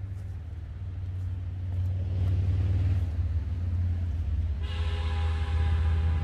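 Low, steady rumble of a passing vehicle, swelling over the first two seconds. About four and a half seconds in, a held horn-like tone sounds over it for about two seconds.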